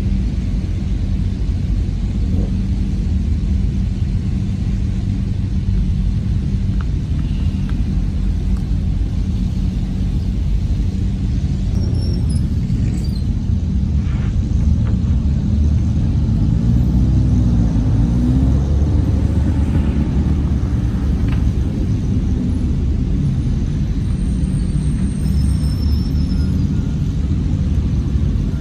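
Supercar engines (Lamborghini Huracán, Audi R8, Mercedes-AMG GT) running at low speed as the cars roll past one after another, giving a deep, steady engine drone. Around the middle, one engine's pitch rises and falls as it is revved.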